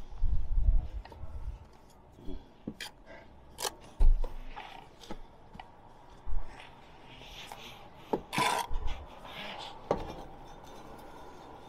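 Steel brick trowel scraping mortar and clinking against bricks, in short irregular scrapes and taps as bricks are laid, with a low rumble in the first second.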